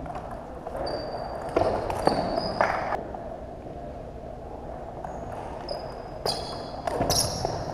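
Table tennis ball clicking off the rackets and table in quick exchanges, with a cluster of hits about a second and a half in and another from about six seconds in, quiet between points. Sneakers give short high squeaks on the hardwood gym floor.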